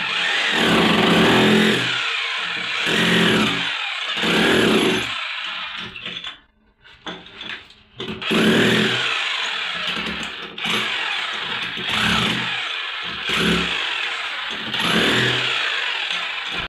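Electric power tool run in repeated bursts of about a second each, its whine rising and falling with each burst, with a short pause about halfway through, as a tiled bathroom floor is opened up to reach a leaking pipe.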